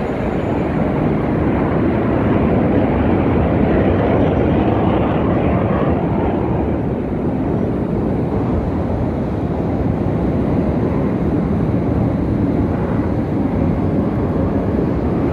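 Military jet flying past, a loud, steady rush of engine noise that builds over the first couple of seconds and then holds.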